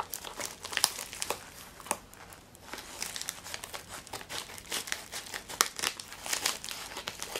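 Scissors cutting along the end of a padded mailer envelope, with irregular snips and crinkles of the plastic and paper as it is cut and handled, easing off briefly a couple of seconds in.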